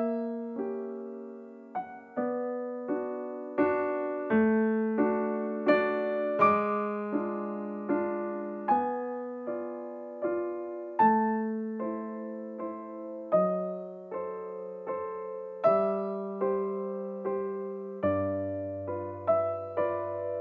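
Background piano music: a slow, gentle melody of struck notes and chords, each note fading after it is played, with a lower bass note coming in near the end.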